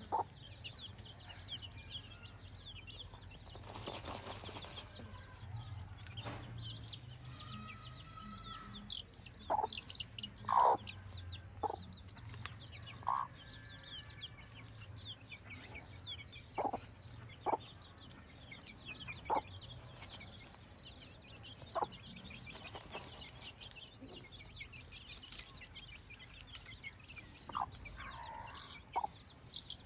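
Free-range village chickens clucking in short, separate calls every second or two, over a steady run of small high-pitched chirps.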